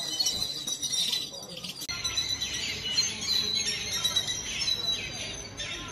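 A flock of black birds calling from power lines: many overlapping high chirps and squeaks.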